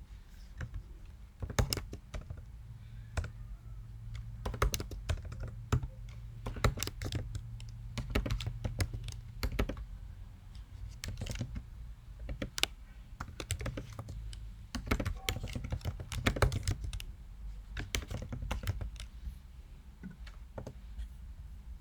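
Typing on a computer keyboard: irregular runs of key clicks, with short pauses between them, over a low steady hum.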